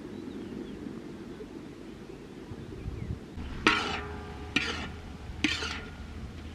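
Metal cookware knocked three times about a second apart, each knock ringing briefly, starting a little past halfway, over a steady low rumble.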